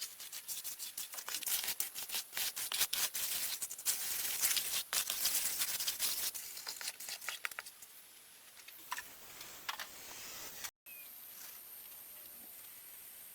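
Quick, irregular scraping and rustling strokes that go on for about eight seconds and then thin out. After a sudden cut, only a steady high hiss remains.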